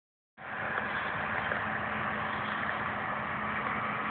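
Dodge Ram pickup's engine running steadily at low revs as the truck crawls through a shallow ditch, with no revving; the sound cuts in abruptly about a third of a second in.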